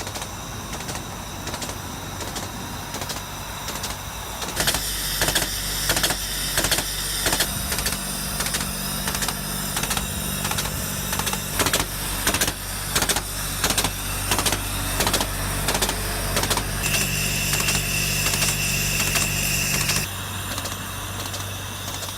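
Diesel engine of a road construction machine running steadily, with a rapid series of sharp mechanical clanks, about two to three a second, starting a few seconds in, and a steady high whine near the end.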